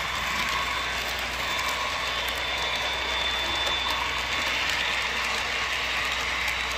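Model railroad freight cars rolling past on the track: a steady rattling clatter of small wheels on rail, with faint ticking.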